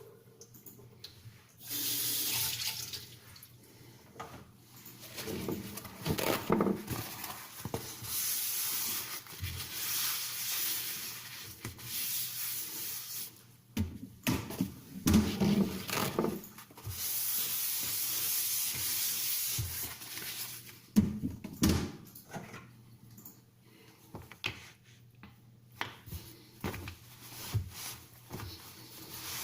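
Water tap running in three spells, with knocks and clatter between them, as sharpening slurry is rinsed away.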